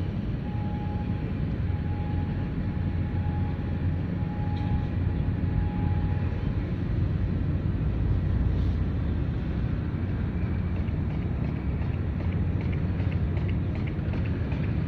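Wind on the microphone over a low, steady rumble, with a faint beep repeating about once a second for the first six seconds.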